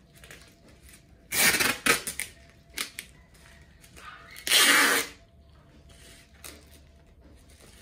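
Clear packing tape pulled off the roll with a loud rip, twice: about a second in and again around four and a half seconds, with a short tape sound in between.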